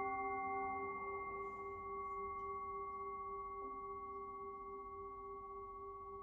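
Tibetan singing bowl ringing on after a strike, several steady tones fading slowly; about a second in, some of the lower tones stop.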